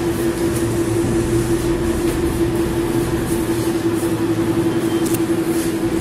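Steady mechanical hum with one constant tone, over a level background noise. Faint light rustles and shuffles of papers and feet come and go.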